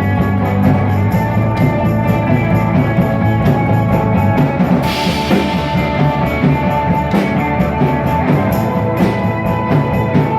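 Live rock band playing an instrumental passage with no singing: a drum kit keeps a steady beat under sustained guitar and bass. A cymbal crash comes about five seconds in and rings away.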